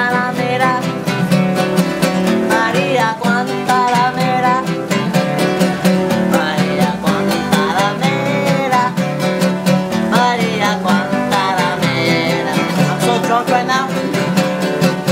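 Several acoustic guitars strummed in a quick, even rhythm, with a man's voice singing along over them.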